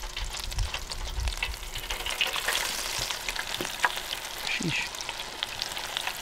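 Battered morel mushroom pieces frying in hot oil in an electric deep fryer: a steady sizzle with scattered small pops, swelling a little about two seconds in.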